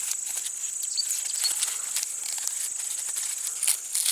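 Dry corn husks crackling and rustling as ears are handled and peeled back, over a steady high-pitched insect trill.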